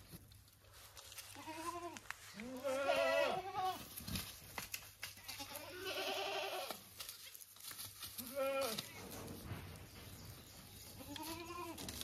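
Goats bleating: about five pitched calls a couple of seconds apart, two of them overlapping about three seconds in, from more than one goat.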